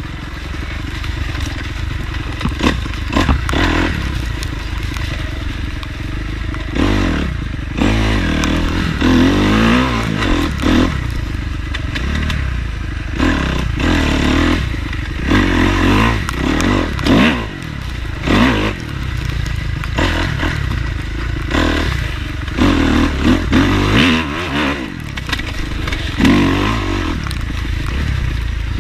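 Dirt bike engine revving up and falling back again and again as it is ridden hard along a trail, with scraping and clattering knocks from the bike over rough ground.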